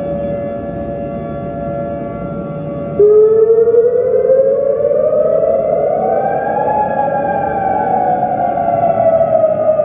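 Siren sound effect in the style of a civil-defense siren. A steady multi-tone sound with a hiss beneath it runs for about three seconds, then a louder siren tone cuts in abruptly. It rises in pitch for about four seconds and then slowly winds down.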